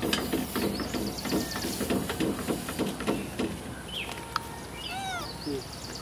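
Rapid scuffling and rustling on dry leaves and dirt through the first half. Then a brief rising chirp, and about five seconds in a short arched call, from animals among the feeding monkeys and the bushes.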